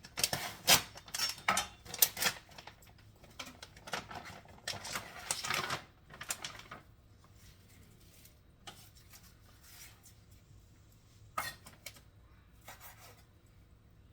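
Kitchen handling noises: a quick run of clicks, knocks and clatter for the first half, then only a few separate knocks, about one every second or two.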